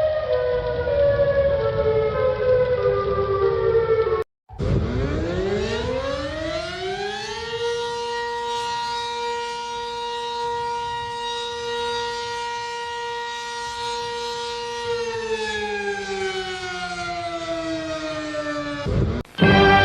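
A civil defense siren winds up over about three seconds, holds a steady tone, then slowly winds down before cutting off. Before it, a different alarm with tones falling in steps cuts off about four seconds in.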